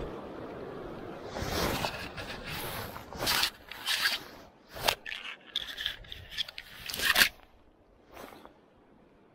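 Jacket fabric brushing and scraping against the camera's microphone: a run of irregular, loud rustles and scrapes, the loudest near the end, then it falls quiet.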